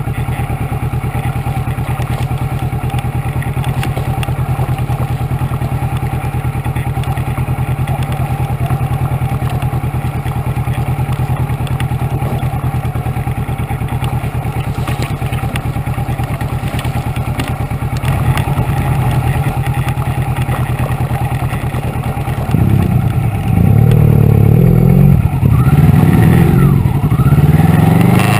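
Kawasaki Versys 650's parallel-twin engine running steadily at low revs. From about 22 seconds in it gets louder, and the revs rise and fall as the motorcycle is ridden along a rough dirt track.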